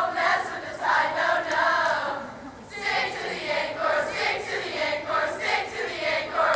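A large group of girls singing a cheer together in unison, with a brief break about two and a half seconds in.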